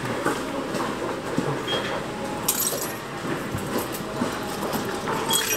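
Railway station ticket-hall ambience: a steady background din with scattered small clinks and clicks, and two brief high-pitched noise bursts about two and a half and five seconds in.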